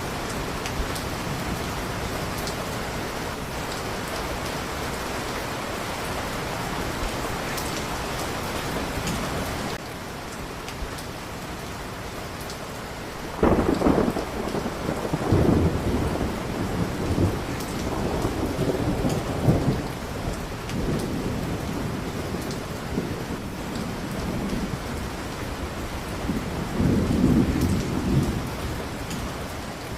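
Steady heavy rain hissing, with thunder rolling in a little before halfway and rumbling on and off, with a second loud peal near the end.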